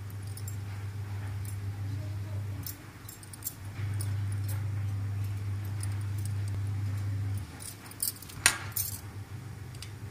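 Small clicks and clinks of a steel spoon against a stainless steel plate and the bangle rings on it as soaked sago pearls are spread, with the spreader's wrist bangles jangling, and one sharper click about eight and a half seconds in. A steady low hum runs underneath and drops out twice.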